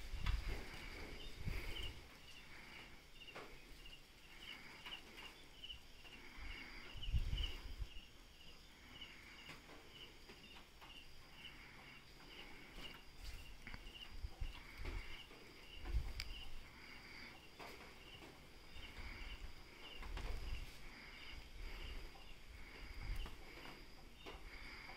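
Night insects chirping steadily, about three short high chirps a second, over a constant high-pitched insect drone. A few low thumps come and go, the loudest about seven and sixteen seconds in.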